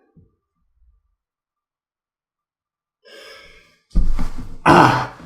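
A man's breath in about three seconds in, followed by a loud, heavy sigh blown out into the microphone.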